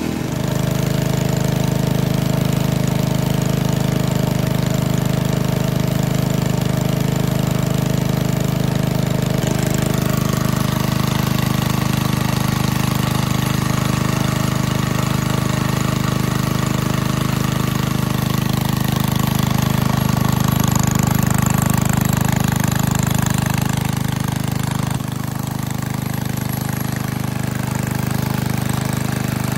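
1951 Briggs & Stratton 6B-SF single-cylinder four-stroke engine running steadily, its governed speed brought down by moving the governor spring to the next, lower-tension hole.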